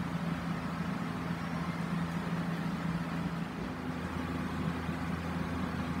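National commercial-grade wall-mounted exhaust fan running steadily: a constant low hum over an even rushing noise.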